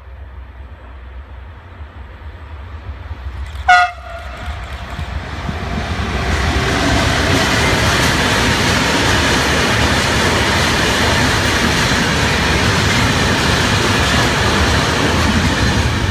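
Electric-hauled freight train of container wagons sounding one short horn toot about four seconds in, then running past close by with a loud, steady rush of wheels and wagons on the rails.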